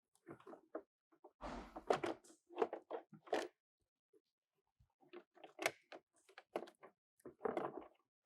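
Plastic interior door card being handled and hung against a Toyota Supra's door: irregular clicks, knocks and scraping of plastic on the door, with a longer scrape about one and a half seconds in.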